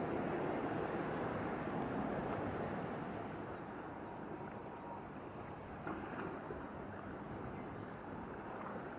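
Steady noisy wash of a large container ship passing close by, its bow wave and engine, with wind on the microphone; the noise eases a little partway through.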